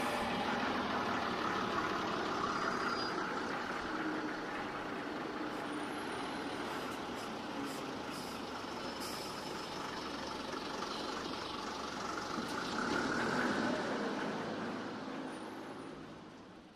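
Street traffic noise: a steady rumble and hiss of buses and heavy vehicles, fading out near the end.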